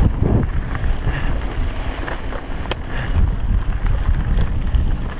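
Wind buffeting an action camera's microphone over a steady rumble from a mountain bike riding on a dirt trail, with scattered sharp clicks and rattles from the bike.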